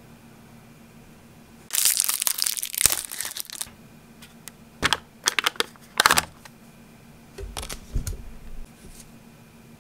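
Plastic wrapper crinkling for about two seconds as it is stripped off a wide tapioca straw, then a run of sharp crackles and clicks and a low thud as the straw is pushed through the milk tea cup's sealed lid.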